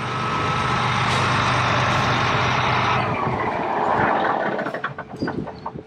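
A large farm vehicle's engine running loudly, a steady low hum under a rushing hiss, which drops away after about four seconds.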